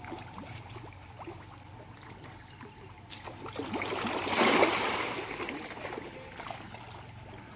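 Water splashing: a sudden splash about three seconds in that swells, peaks and dies away over roughly two seconds, over a faint steady hum.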